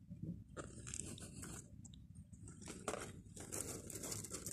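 Popcorn being eaten close to the microphone: irregular crunches with faint rustling.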